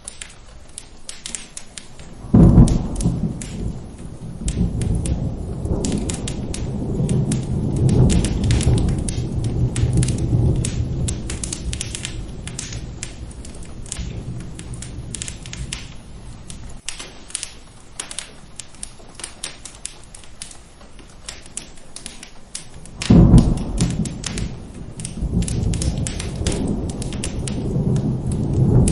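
Steady rain with a thunderstorm, mixed with the sharp crackle of a fireplace throughout. A loud thunderclap breaks about two seconds in and rumbles on for several seconds. A second clap comes near the end and is still rolling as the sound ends.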